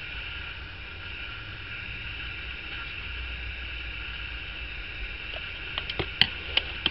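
Steady background hiss and hum with quiet handling; near the end, a few light clicks and taps as scissors and a cut piece of EVA foam are put down on the work mat.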